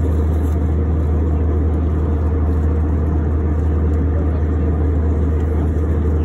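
Steady low drone of a jet airliner cabin in cruise flight: turbofan engine and airflow noise heard from a window seat, even and unbroken.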